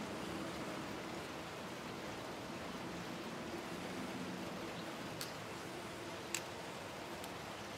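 Quiet, steady background hiss, with two faint clicks about five and six seconds in.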